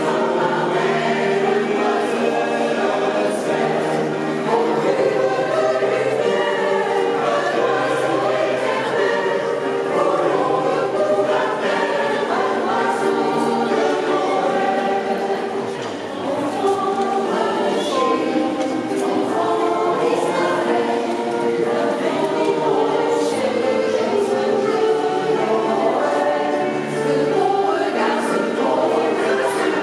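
Mixed choir of men's and women's voices singing a French Christmas song in parts, sustained continuously.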